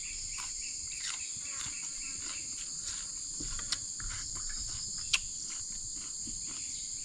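Steady high-pitched chorus of insects, with a couple of sharp clicks about four and five seconds in.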